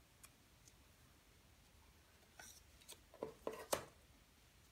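Faint handling sounds of hands opening a small drawstring bag and its paper tag: a few soft ticks at first, then a cluster of rustles and clicks from about halfway through, the loudest shortly before the end.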